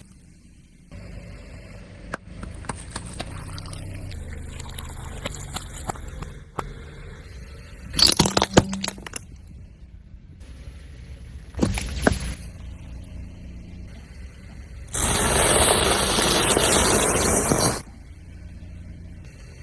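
A car tyre rolling slowly over objects and crushing them: a low rumble, two sudden crunching bursts, then about three seconds of loud rushing liquid as something bursts and sprays out near the end.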